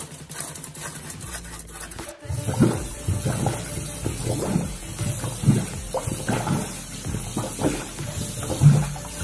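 Water running and gurgling in a sink basin, in uneven surges, beginning after a brief cut about two seconds in.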